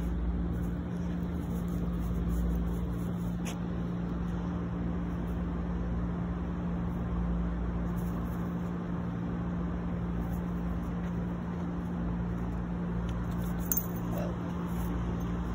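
Steady low hum over a constant rumble of outdoor background noise, with a few faint clicks.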